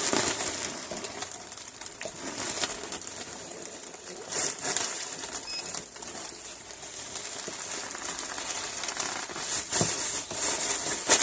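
Breathing and rushing air as helium is sucked out of balloons, with light rustling of the balloon rubber.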